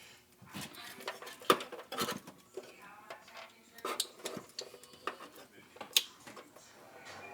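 Tools and small metal parts clicking and clinking as they are handled, with a few sharp, louder clicks a second or two apart.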